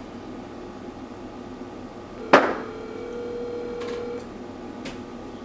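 A single sharp knock or clank a little over two seconds in, followed by a steady ringing tone for nearly two seconds, over a steady background hum. A couple of faint clicks follow.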